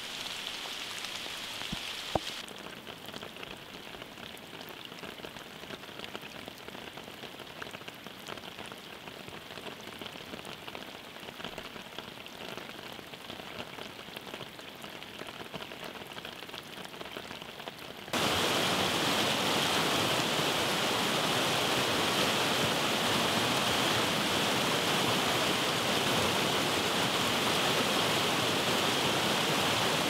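Rain falling steadily with drops pattering on leaves and a sharp single drip about two seconds in; about two-thirds of the way through it cuts suddenly to a much louder, steady rush of water.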